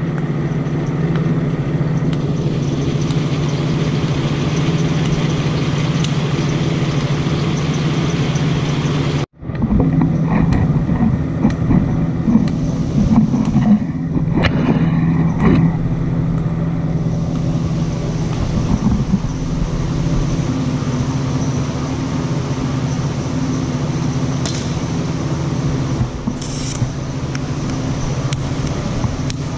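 TIG welding on a steel frame: a steady low electrical hum from the welder and arc, broken by a brief cut about nine seconds in.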